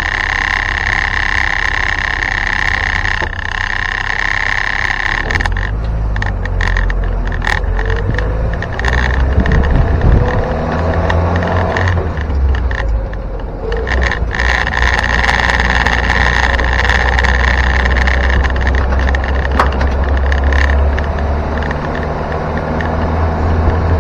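Land Rover Series 2 station wagon driving, heard from inside the cab: a steady low engine rumble with a constant high whine. Loose body parts clatter and rattle throughout; the owner puts the rattling down to the tailgate, which needs better rubber bumpers. The whine drops out for several seconds in the middle, and the rumble swells about ten seconds in.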